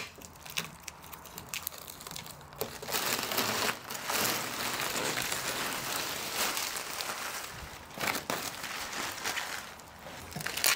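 Plastic crash-wrap film being peeled off a boat's gelcoat and bunched up by hand: continuous crinkling and crackling of the plastic, louder through the middle few seconds.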